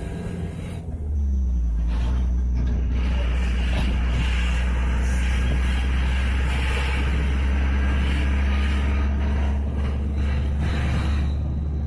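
Minibus engine and road noise heard from inside the cabin while it drives: a steady low rumble that grows louder about a second in as the bus picks up speed, then holds even.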